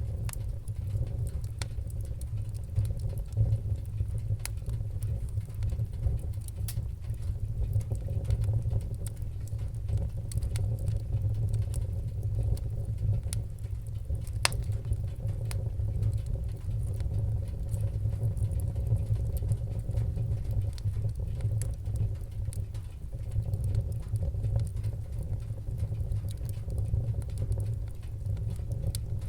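Fireplace fire crackling: sharp, irregular pops and snaps, a few of them louder, over a steady low rumble of the flames.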